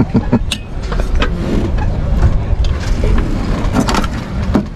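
A steady low rumble with a few short light knocks and clicks from a small bench vise being set and clamped in place.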